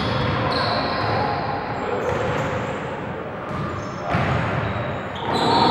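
Basketball game sounds on a gym's hardwood court: a ball bouncing amid players' shouting voices.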